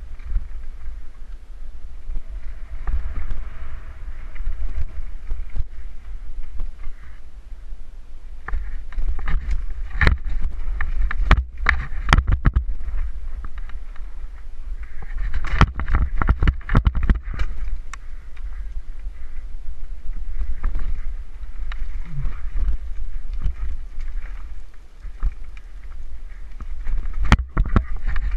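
Downhill mountain bike ridden fast down a rocky dirt trail: wind rumbling on the helmet-mounted microphone over steady tyre noise on dirt and loose stones, with bursts of sharp clattering as the bike rattles over rough, rocky sections about ten seconds in, in the middle, and again near the end.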